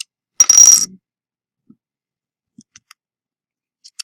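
Plastic pry pick working at the edge of a Galaxy S4's case: one loud half-second scrape with a high squeak about half a second in, then a few faint clicks.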